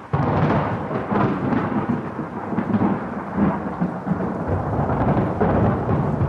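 Thunder rumbling over steady rain, starting suddenly just after the beginning and staying loud with uneven swells.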